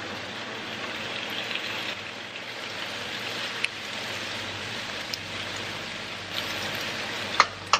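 Cherry tomatoes and diced onion sizzling in hot oil in a frying pan, with a steady crackling hiss as they are stirred with a silicone spatula. A few sharp clicks of the spatula against the pan, the loudest two near the end.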